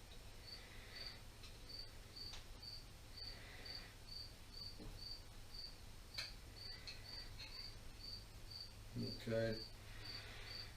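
A cricket chirping steadily, short high chirps about twice a second, over a faint low electrical hum.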